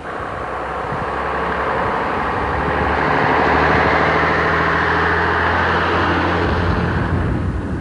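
AEC RT double-decker bus's diesel engine running as the bus drives up and passes close by. It grows louder to a peak three to four seconds in, holds, then eases off near the end.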